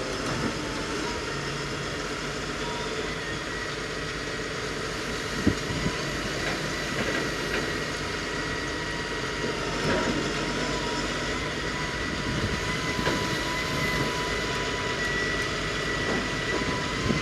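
Heavy diesel machinery running steadily, with a thin high whine held over the engine and a few short metallic knocks.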